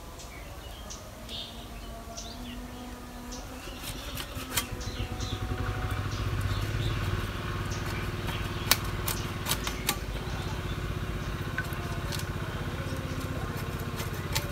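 A small engine runs steadily, swelling in from about four seconds in and then holding. Over it come sharp scraping clicks of a knife scaling a tilapia.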